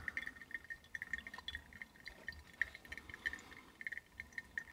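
Faint trickle of a slow, thin stream of water poured from a plastic pouring pitcher onto the coffee bed in a paper-filtered pourover dripper, with small irregular drip ticks. It is the gentle, low-agitation pour near the end of the brew water.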